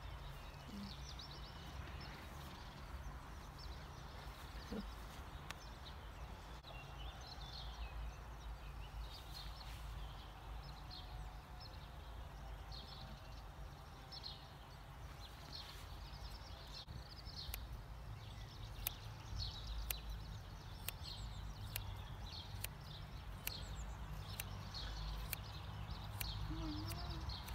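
Scissors snipping through long hair, a run of sharp clicks in the second half, over birds chirping and a low steady rumble.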